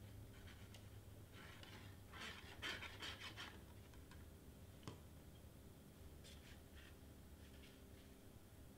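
Faint rustling and scraping of cardstock being handled while glue is applied and the piece is pressed together, with a few short rustles a couple of seconds in and a small click near the middle.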